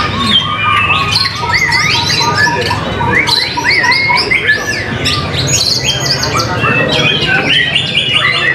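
White-rumped shamas singing in competition: dense, overlapping loud whistles that glide up and down, with fast trills of rapidly repeated notes. A low steady background rumble runs beneath the song.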